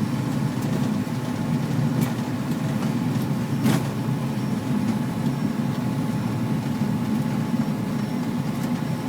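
Cessna 402B's twin piston engines running steadily at low power while taxiing, with a couple of short clicks about two and four seconds in.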